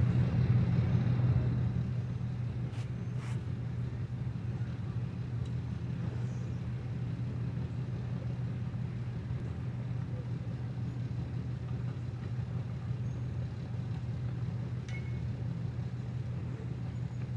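Engine running at a steady idle, an even low hum, a little louder in the first second or two.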